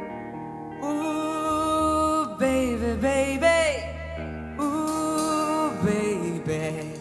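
Male vocalist singing long held notes with bending, wavering runs between them, over live band accompaniment.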